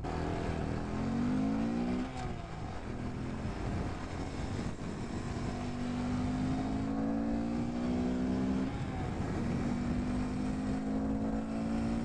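2018 Honda Grom's 125cc single-cylinder engine pulling hard near its top speed. Its pitch climbs, falls away about two seconds in, rises slowly, drops again near nine seconds, then climbs once more.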